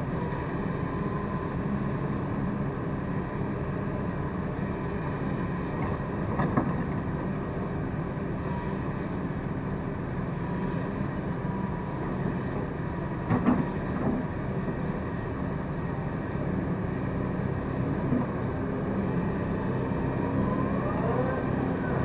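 Hyundai wheeled excavator's diesel engine running steadily under hydraulic load as it digs and swings soil, with a few sharp knocks from the bucket and arm, the loudest about two-thirds of the way through. Near the end a whine rises in pitch.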